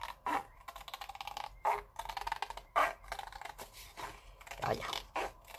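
Scissors snipping through stiff paper, cutting out a circle: a run of short, sharp snips at irregular intervals, with the paper rustling between them.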